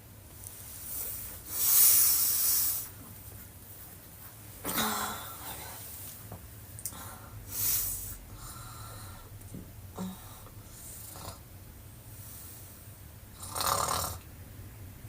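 A woman snoring with her mouth wide open: a few separate raspy snoring breaths at uneven intervals, the loudest and longest about two seconds in, and weaker ones around five, eight and fourteen seconds in.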